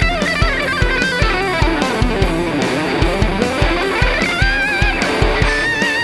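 Kramer Night Swan electric guitar through an overdriven Marshall JCM800 amp, playing a lead line with bent notes and vibrato over a backing track with a steady kick drum.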